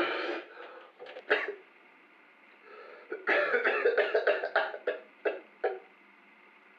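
A man coughing: a couple of single coughs, then a fit of rapid coughs a few seconds in, tailing off into two last coughs.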